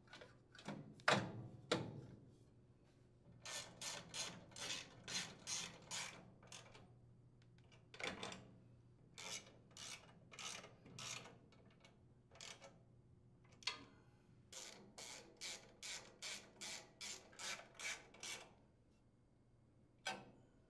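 Faint tool noise on an engine's blower housing: two knocks as the housing is seated, then runs of quick rasping strokes, about three a second, from a small hand ratchet and socket driving the housing's mounting screws.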